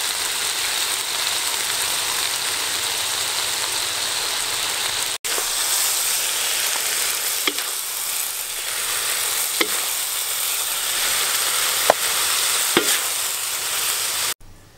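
Pork large intestines with green peppers sizzling loudly as they stir-fry in a large wok, a steady hiss. Several sharp clicks of a wooden spatula against the wok come in the second half, and the sizzle stops abruptly near the end.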